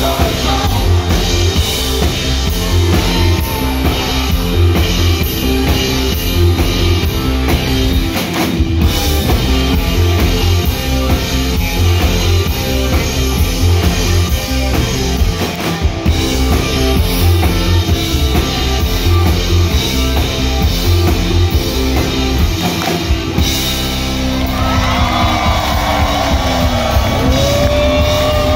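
Live rock band playing loudly on electric guitar, keyboards and drum kit. In the last few seconds the drumming thins out and wavering, sliding tones take over, with one rising glide near the end.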